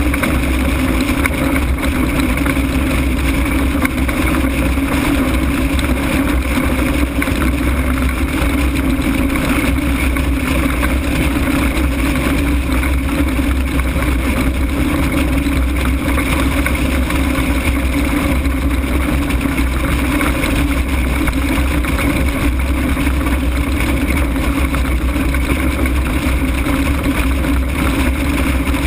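Steady rush of wind over an ultralight aircraft gliding with its engine shut off, buffeting the exposed camera microphone with a constant low rumble.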